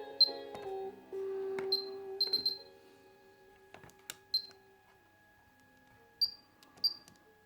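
Pioneer KEX-P820RDS car stereo head unit beeping as its buttons are pressed: short, high beeps, about eight in all and irregularly spaced, some in quick succession, with a few faint clicks. The tail of some music and a brief held tone are heard in the first two to three seconds.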